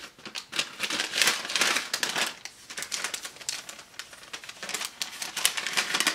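Packaging crinkling and rustling as it is handled, a run of quick crackles that is loudest about one to two seconds in.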